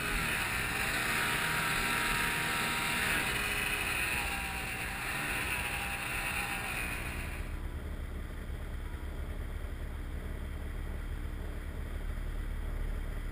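Ski-Doo Rev XP snowmobile engine running at high revs through deep powder, with a loud rushing hiss over it. About seven and a half seconds in the high part of the sound drops away, leaving a low rumble.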